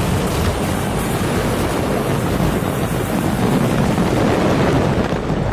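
Large outdoor crowd cheering in a steady, loud roar.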